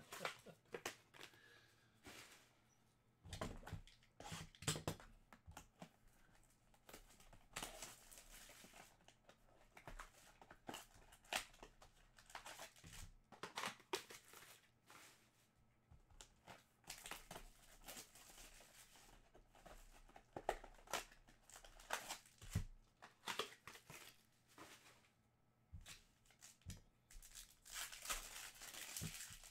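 Faint, irregular rustling, crinkling and tearing of wrapping and packaging, with scattered small clicks, as sealed trading-card boxes and packs are opened by hand.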